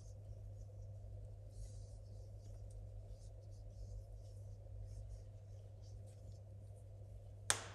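PTFE tape being pulled off the roll and wound clockwise around the threads of a steel pipe end: faint scratchy rustles, with one sharp click near the end.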